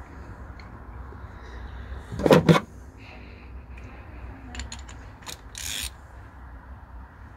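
Ratchet wrench and socket clicking and knocking as a spark plug is screwed back into its plug well. There is a loud double knock about two seconds in, then a few light clicks around five seconds.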